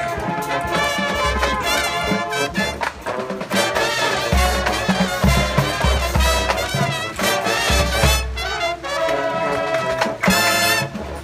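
Marching band playing, a brass section over drums, with recurring low bass-drum hits.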